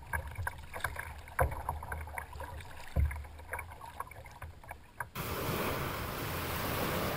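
Small waves lapping and slapping against the hull of a Wilderness Systems Tarpon 100 sit-on-top kayak, with scattered drips and splashes, a low wind rumble on the microphone and two heavier thumps. About five seconds in it cuts abruptly to a steady, even rushing noise of wind and water.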